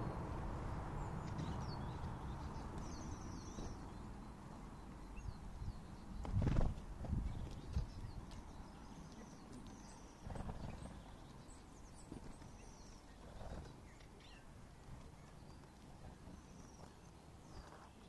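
Small songbirds at a feeder give several short, high chattering call series over a low rumble. A few dull thumps come about six to eight seconds in.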